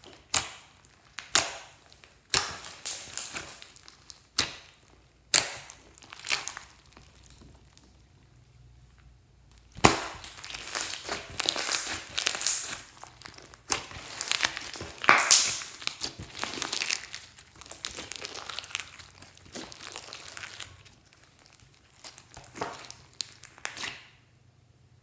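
Glossy slime being squished and worked by hand, making sticky crackling and popping sounds: a few separate sharp snaps at first, then, after a short pause, a long run of continuous crackling.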